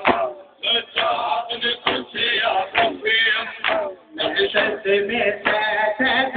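Crowd of men chanting a noha in unison, with sharp chest-beating (matam) strikes about once a second.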